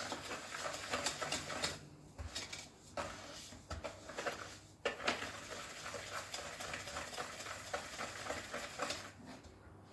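Butter and sugar being creamed by hand in a mixing bowl: continuous stirring and scraping, with small clicks and a few sharper knocks of the utensil against the bowl.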